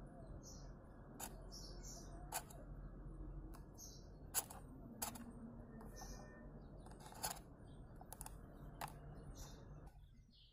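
Quiet room with a steady low hiss that drops away near the end, broken by about half a dozen sharp clicks and short faint high chirps about once a second.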